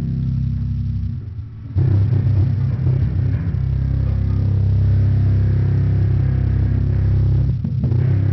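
Heavily distorted electric guitars and bass amplified loud in a band rehearsal, holding low droning chords. The chords break off briefly about a second in, come back hard, and dip again for a moment near the end.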